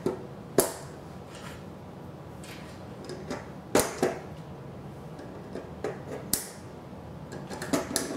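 VEX IQ plastic connector pins being pushed and snapped into plastic beams by hand, heard as scattered sharp clicks and taps with light handling between them.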